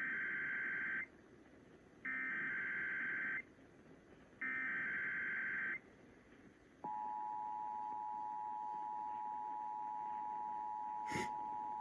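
Emergency Alert System signal: three bursts of the SAME digital header, each about a second long and a second apart, then, about seven seconds in, the steady two-tone EAS attention signal (853 and 960 Hz) begins and holds. A short click sounds near the end. This is the opening of a Required Monthly Test alert.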